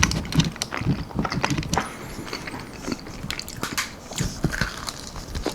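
Chewing and biting into almond-flour-breaded chicken wings: irregular crunches and mouth clicks.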